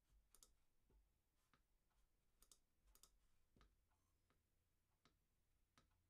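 Near silence broken by about eight faint, scattered clicks of a computer mouse, two of them quick double clicks.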